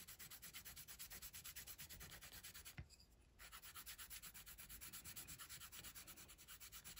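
Faint scratchy rubbing of a sharpened oil-based Brutfuner colored pencil shading back and forth across paper in quick, even strokes, about eight a second, with a brief pause a little before the middle.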